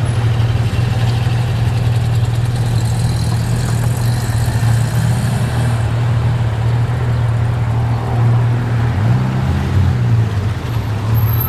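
Porsche engines idling close by with a steady low hum as the cars pull out onto the road one after another; about nine seconds in, one engine revs up and back down.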